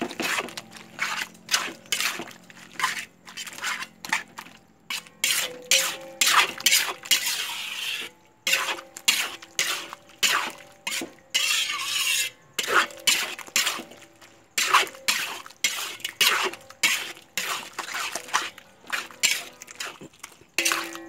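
Metal spatula scraping and knocking against a metal wok at about two strokes a second while stir-frying a thick mix of soaked crackers, sliced meatballs and egg.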